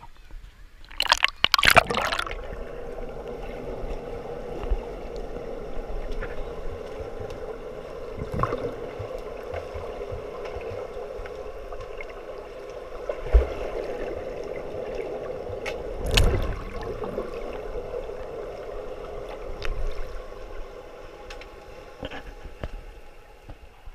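Swimming-pool water splashing as a camera is plunged under the surface about a second in, then the muffled underwater sound of the pool, a steady hum broken by a few gurgles and knocks.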